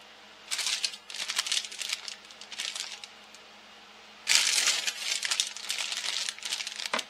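Crinkling and rustling from something being handled, in two spells of irregular crackle: one starting about half a second in and one starting about four seconds in.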